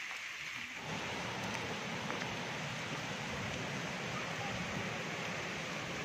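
Steady hiss of falling rain, which becomes fuller and deeper about a second in.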